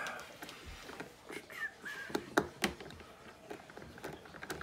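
Scattered light clicks and knocks of hard plastic being handled on a kids' battery-powered ride-on motorcycle, with a couple of short high squeaks about a second and a half in.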